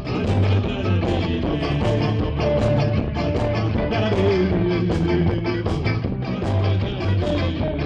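Live band playing amplified music with guitar and a steady beat, recorded with poor sound quality.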